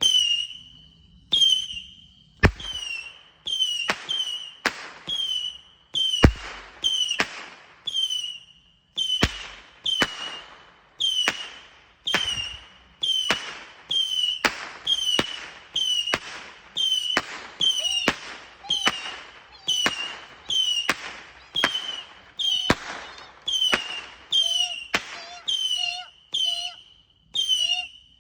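Box of consumer fireworks (a repeating cake) firing a long, steady run of about thirty shots, a little under one a second. Each shot is a sharp bang with a short high whistle that dips slightly in pitch.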